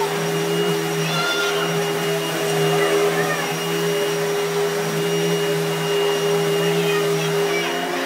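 Vacuum cleaner motor running with a steady hum and a rush of air. Its pitch shifts just before the end.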